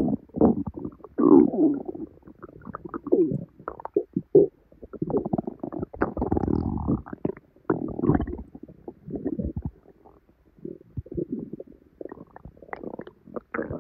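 Human stomach gurgling and rumbling from a bloated, painful belly after eating salad: a dense, irregular run of bubbling gurgles with a few squeaky sliding tones, easing briefly around ten seconds in before picking up again.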